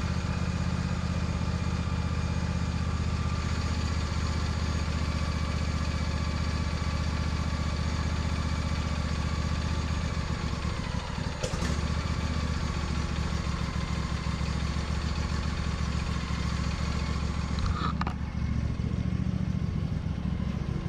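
Old riding lawn tractor's engine running steadily with the choke still pulled, just after starting from cold after sitting all winter, with a brief click about halfway through.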